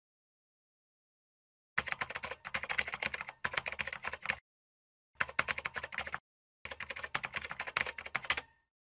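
Computer keyboard typing: rapid keystrokes in three quick runs separated by short pauses, starting about two seconds in.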